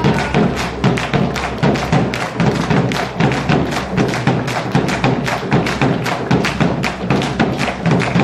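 Fast, even percussive beats, about six a second, with music behind them.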